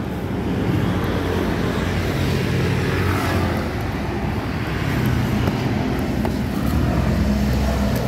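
Yamaha Sniper 155's single-cylinder engine idling steadily through an MVR1 fully adjustable aftermarket muffler.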